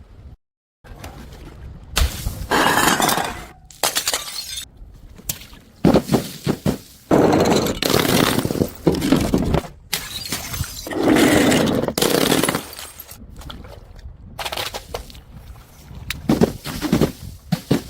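Glass bottles smashing one after another, each a sudden crash followed by crackling, tinkling shards, about half a dozen times.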